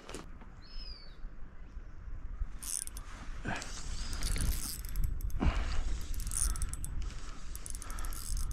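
Clicking and rattling of fishing tackle being handled, with a short, high, gliding bird call about a second in.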